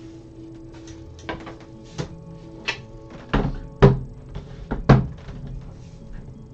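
A handful of hard knocks and thuds against a tabletop or furniture, the two loudest about a second apart near the middle.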